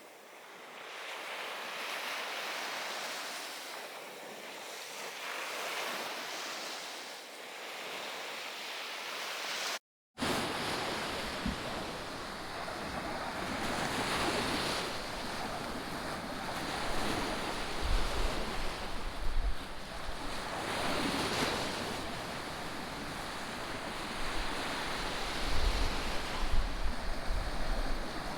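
Sea waves washing onto a beach, swelling and fading every few seconds, with a brief dropout about a third of the way in. In the later part, wind gusts buffet the microphone with low rumbling bursts.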